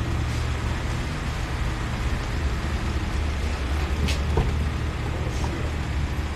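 Steady low hum of a Mitsubishi Triton pickup's engine idling, heard beside its open door, with a sharp click about four seconds in.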